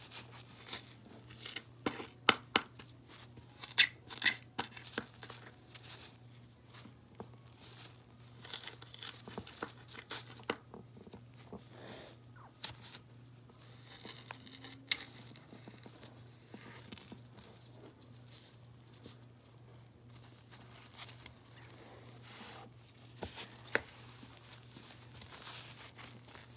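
Gloved hands squeezing and pulling pink slime, making sticky crackles and pops. The crackles come thick and loud for the first five seconds, then sparser, over a steady low hum.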